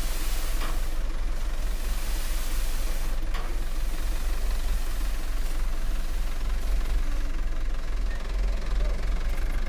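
Light dump truck's diesel engine running with a steady low rumble as the truck creeps forward with its tipper bed raised, spreading a load of soil out of the back.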